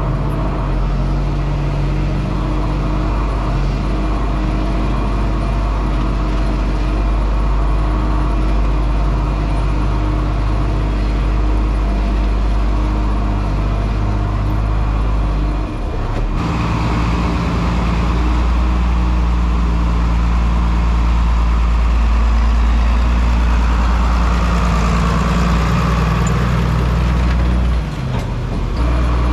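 A farm machine's engine running steadily with a deep hum, with two brief dips, about halfway through and near the end.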